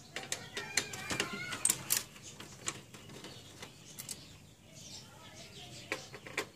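Screwdriver clicking and scraping against the sheet-metal chassis of an HP LaserJet 1320 printer as the formatter board's screws are taken out: irregular sharp metal clicks, busiest in the first two seconds, with a few more near the end.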